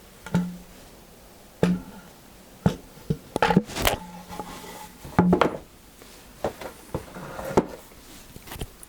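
Scattered knocks and clunks of wooden boards and the bandsaw fence being handled and set, with the saw not running.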